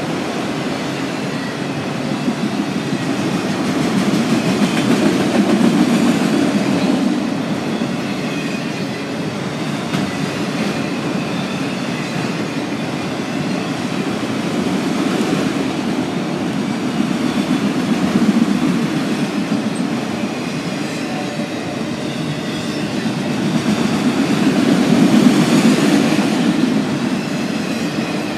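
Freight train of autorack cars rolling past at close range: steel wheels rumbling and clattering on the rails, swelling louder and easing off several times as the cars go by.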